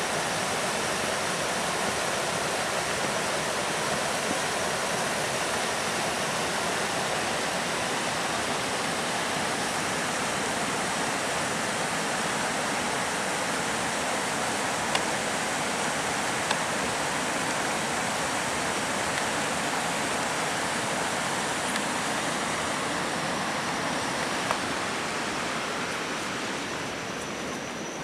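Shallow rocky stream rushing over stones: a steady rush of water that grows somewhat fainter near the end.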